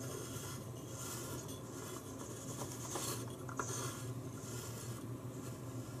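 Plywood combination lock dial turned by hand: the wooden discs and wheels rub and scrape against each other in several short swells, with a click about three and a half seconds in.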